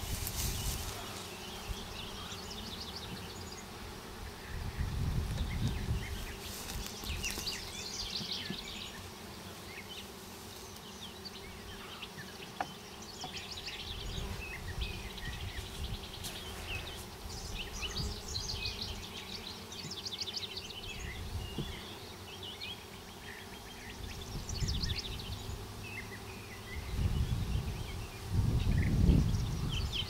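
Honeybees buzzing around an open hive, a steady hum, with high chirps over it and a few low rumbles that come and go.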